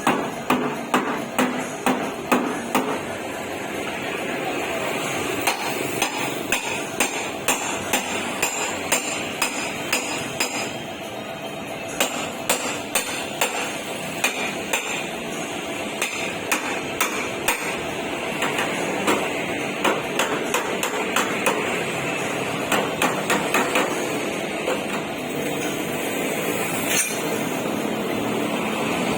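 A hammer striking the sheet metal of a boxy Toyota Starlet's body panel, in runs of rapid blows with short pauses between, over steady workshop background noise.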